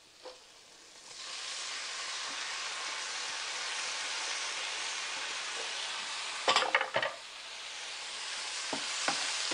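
Diced tomatoes dropping into hot oil with softened onions in a nonstick pan, setting off a steady sizzle about a second in. About two-thirds through come a few sharp knocks against the pan, then stirring as the sizzle goes on.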